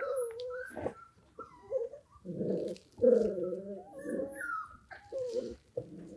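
Five-week-old German Shorthaired Pointer puppy whimpering in a string of short, wavering whines.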